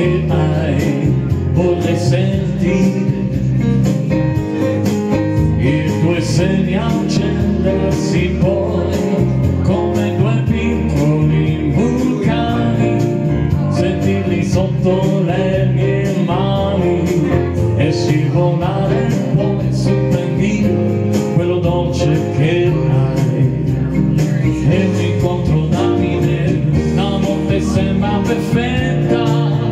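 A man singing with his own electronic keyboard accompaniment, live into a microphone, with a steady beat under it.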